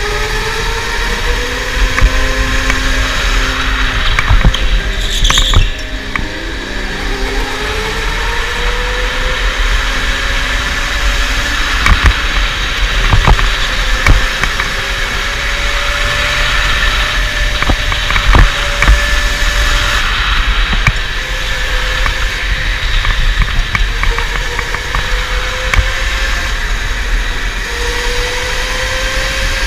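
Electric go-kart motor whining, its pitch rising again and again as the kart accelerates out of each corner, over a steady low rumble. A few sharp knocks come through along the way.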